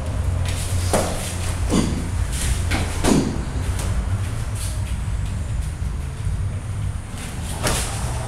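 Muay Thai kicks and blocks landing, with about four sharp slaps of shin and glove striking, spread out with a long gap before the last one. A steady low hum runs underneath.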